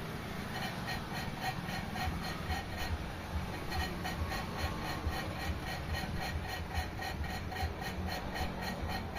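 A machine running steadily, with an even rhythmic pulse about four times a second.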